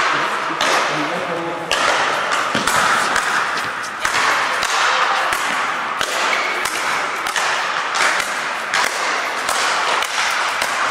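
Speed-ball rackets striking the tethered ball in a rally, a sharp hit roughly every second at an uneven pace, echoing in a large hall with hits from other courts overlapping.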